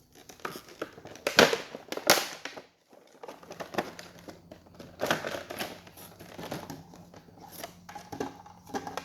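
Cardboard box and its packaging being pulled open and handled: irregular crinkling and rustling, with two loud sharp rips about a second and a half and two seconds in. A faint steady low hum sits underneath from about three seconds in.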